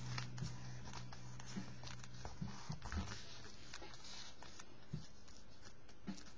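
Soft taps and paper rustles as fingers press, fold and smooth a small piece of paper on a sketchbook page. A low held note of background music stops about two and a half seconds in.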